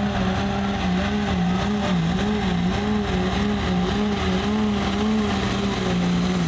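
Turbocharged diesel pickup engine at full throttle pulling a weight-transfer sled, held at high revs, the pitch wavering up and down as the truck hooks and bounces down the track, then dropping at the very end.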